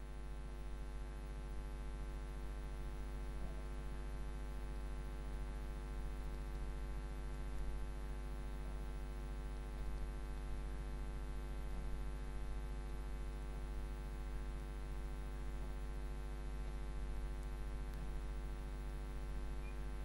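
Steady electrical mains hum, one low tone with a stack of evenly spaced overtones, unchanging throughout.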